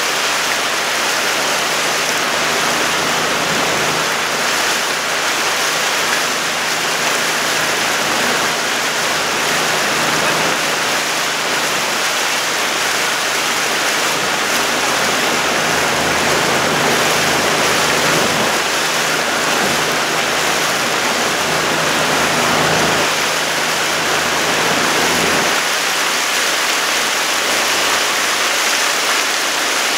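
Steady rushing noise of water and air from a boat moving through calm water, with a faint low hum underneath.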